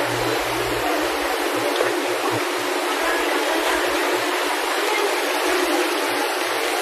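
Steady rush of running water, like the seawater flowing through live-seafood tanks and baskets.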